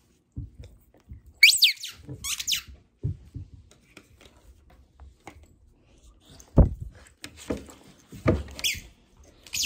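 A squeaky dog tennis ball squeezed by hand, giving two short high squeaks about a second and a half in. Then come a few dull thumps as a Siberian husky lunges for the ball, the loudest just past the middle.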